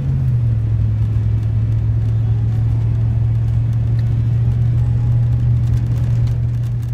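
A motor running with a steady, loud, low drone that dips slightly in pitch at the start.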